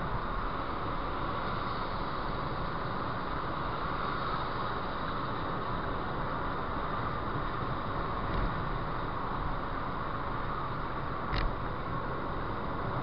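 Steady road and wind noise of a car driving at motorway speed, with a single short click near the end.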